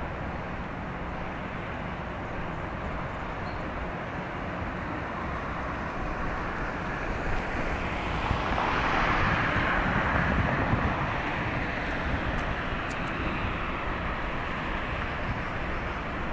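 Steady outdoor background rumble and hiss, with a passing vehicle that swells up and fades away around the middle.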